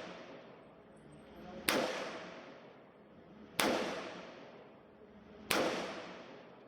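Three single gunshots from an Aero Precision EPC-9 9mm carbine, fired at an even pace about two seconds apart, each trailing off in echo.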